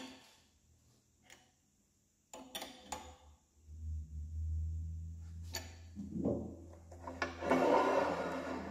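A wrench clinking on the steel jack-bolt jam nuts of a Goulds 3196 pump's bearing frame as they are tightened: a few sharp metallic clicks, then a longer, louder stretch of handling noise near the end.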